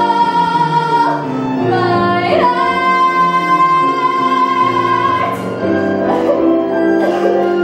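A woman singing a musical-theatre solo with a full, open voice over instrumental accompaniment, holding one long high note in the middle; toward the end the accompanying chords come to the fore.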